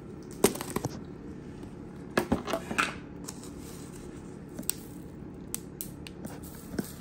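Crisp fried pork rinds crackling and crunching, in two short clusters of sharp clicks about half a second in and about two seconds in, with a few scattered ticks after, over a steady low hum.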